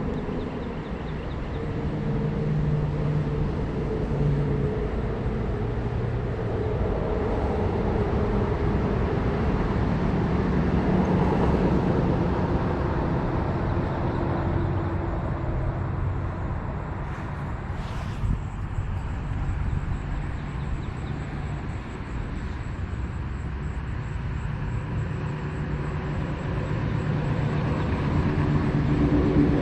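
Steady low rumble of engine noise from passing vehicles. It swells and fades slowly, with a single sharp click about eighteen seconds in.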